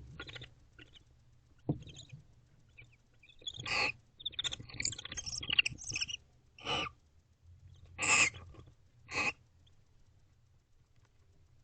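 A pair of barn owls calling softly to each other: four short hissing calls and, between them, a quick run of high twittering chirps. A single sharp knock comes about two seconds in.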